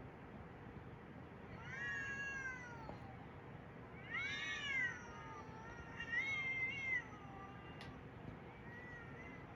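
A cat meowing: three drawn-out meows about two seconds apart, each rising then falling in pitch, with fainter, shorter meows before and after.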